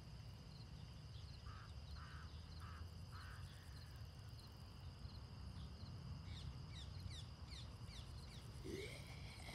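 Faint outdoor ambience: a steady high insect drone over a low rumble, with four short chirps a couple of seconds in and a run of quick falling chirps later on.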